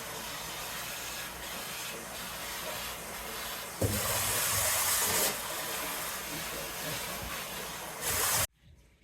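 Vacuum cleaner running with a steady hiss, louder for about a second and a half midway, then cutting off abruptly near the end.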